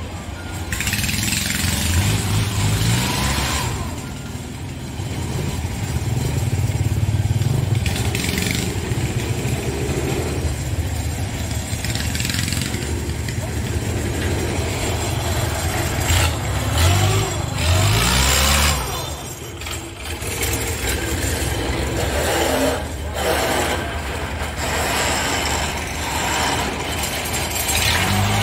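A diesel engine running steadily, revving up and easing off a few times, with the biggest surges about 2 seconds in, around the middle and near the end.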